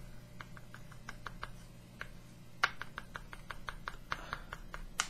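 Light, irregular taps and clicks from a plastic model part being handled while weathering pigment powder is worked onto it, with a sharper click about two and a half seconds in.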